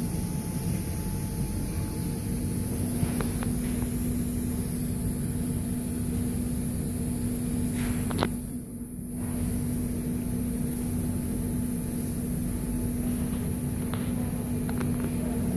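Steady mechanical hum with a constant low tone, with a few faint clicks and a brief drop in level about halfway through.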